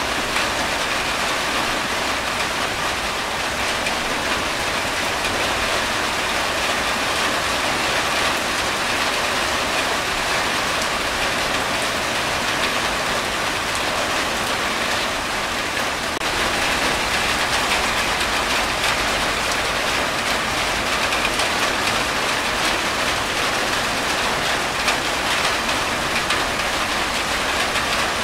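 Steady, dense rain falling on a corrugated tin roof, with runoff streaming off the roof edge.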